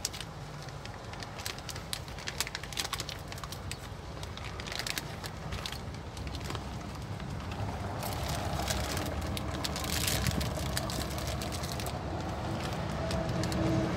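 Light clicks and clatter of kitchen utensils and containers being handled, over a low vehicle engine rumble that grows louder through the second half.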